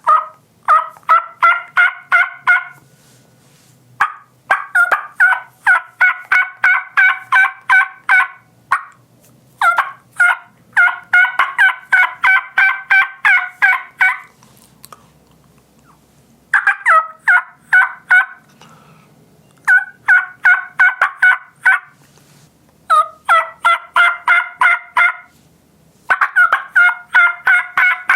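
Hen turkey yelps made on a diaphragm mouth call. There are seven runs of quick, evenly spaced yelps with short pauses between them, and several runs open with a sharp, short note.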